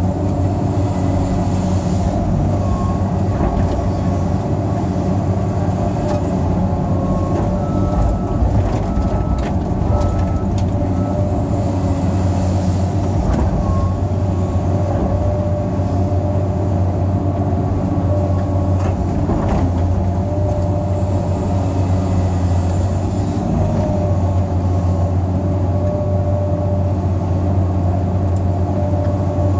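Cat 385C L excavator's C18 diesel engine running steadily under digging load, heard from inside the cab. Short whining tones come and go as the boom and bucket move, with a few sharp knocks.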